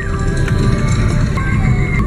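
Music playing continuously, with held tones and a full low end.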